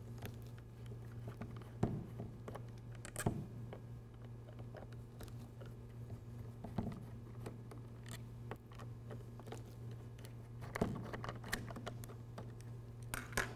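A handful of faint, scattered clicks and ticks from a small Phillips screwdriver backing out the screws of an SKC PCXR8 sample pump's filter housing, over a faint steady low hum.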